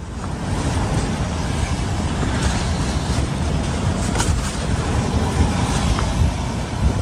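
Steady wind noise buffeting the microphone, over the wash of waves on the beach.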